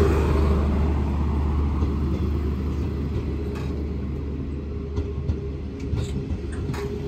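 Passenger train of stainless-steel carriages rolling past, a steady rumble and hum that slowly fades. In the second half come sharp clicks as the wheels cross rail joints.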